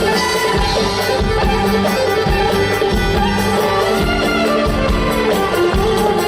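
Loud background music with a steady beat and a melody line over it.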